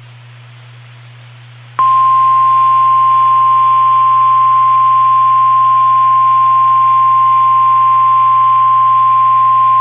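NOAA Weather Radio warning alarm: a single steady high-pitched tone that comes on sharply about two seconds in after a faint low hum, and holds without change. It is the alert tone that announces a warning broadcast, here a severe thunderstorm warning.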